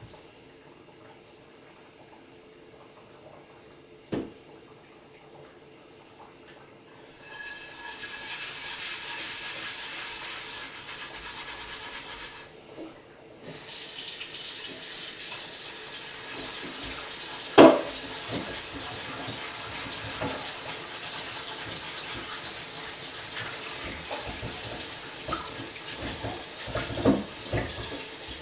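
Kitchen sink tap turned on about seven seconds in and left running, with a short break in the middle, while dishes knock and clatter in the sink; the loudest knock comes a little past halfway.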